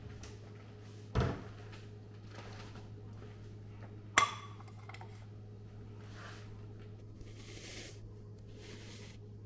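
A dull knock about a second in, then a sharp clink with a short ring about four seconds in as a ceramic plate is set down on the stone countertop. A steady low hum runs underneath.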